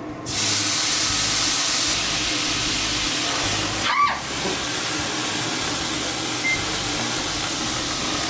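Irish whiskey hissing and sizzling loudly in a hot cast-iron skillet of steak fat as it flares into a flambé, burning off the alcohol. The hiss starts suddenly and holds steady, with a brief sharp sound about four seconds in.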